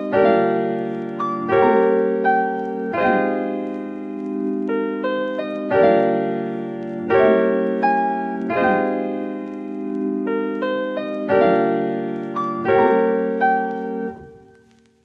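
Background music: electric piano chords in a slow repeating pattern, fading out near the end.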